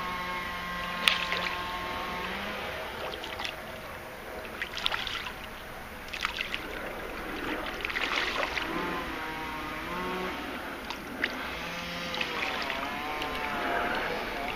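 Irregular small splashes and slaps at the pond surface as fish feed, over a steady background hum that stops about two seconds in. Wavering pitched tones come and go in the background later on.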